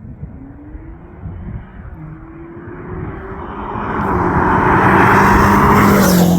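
BMW X5 M's twin-turbo V8, fitted with a titanium valved sport exhaust, accelerating hard. The exhaust note climbs in pitch over the first three seconds, then settles onto a steadier lower note as it gets much louder, loudest about four to six seconds in.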